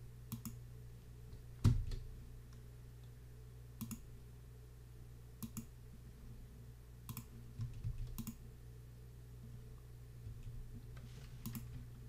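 Computer mouse button clicks, several in quick pairs, every second or two, with a louder click and a dull thump about two seconds in, over a faint low hum.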